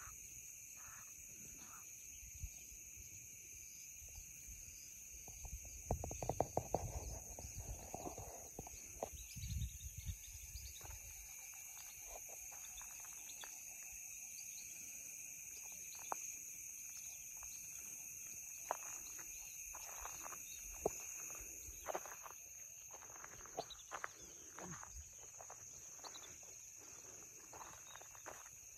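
A steady chorus of crickets rings at several high pitches. About six to ten seconds in there is a stretch of low rumbling and knocking. Scattered sharp clicks follow in the second half.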